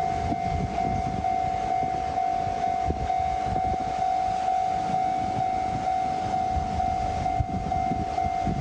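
Japanese level-crossing alarm ringing steadily, a single pitched tone pulsing about twice a second, over the low rumble and wheel knocks of a passing train.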